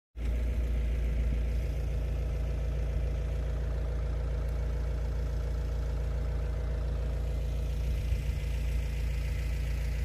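An engine running steadily at idle: a low, even hum that does not change.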